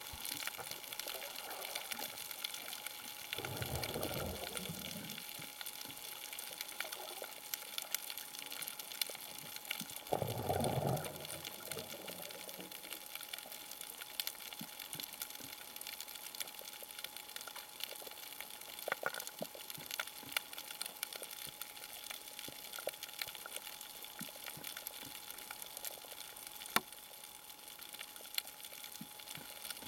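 Underwater sound on a scuba dive: a steady hiss with scattered faint clicks, and twice, about six seconds apart, a rush of bubbles lasting a second or so, a diver exhaling through the regulator.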